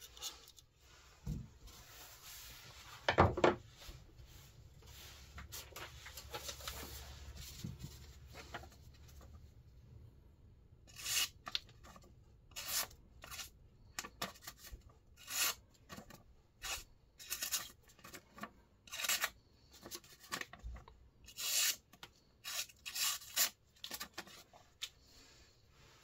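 The blade of a Civivi Elementum Mini pocket knife, Sandvik 14C28N steel, slicing through a sheet of paper. The first part is paper being handled, with one sharp knock about three seconds in. In the second half comes a run of more than a dozen short, separate cuts.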